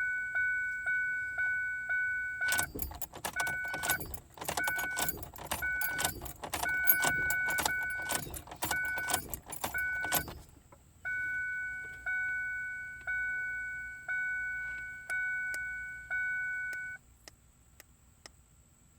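A Ford Focus dashboard warning chime repeating while the ignition key is turned on and off over and over, its key ring jangling and the lock cylinder clicking for several seconds. The chime then keeps sounding about once a second and stops about seventeen seconds in.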